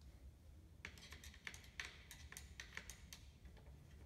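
About a dozen faint, irregular clicks and light taps over roughly two seconds, starting about a second in: hand tools and small parts knocking against a Bridgeport milling machine head as it is taken apart.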